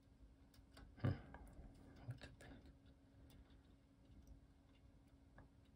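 Faint, scattered clicks of a disc detainer pick turning the discs inside a Solex R40 disc detainer lock, with one louder knock about a second in. A faint steady hum lies underneath.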